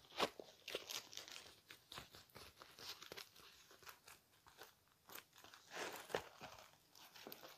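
Faint, irregular crinkling and crackling of a rolled diamond-painting canvas and its plastic cover film being unrolled and handled.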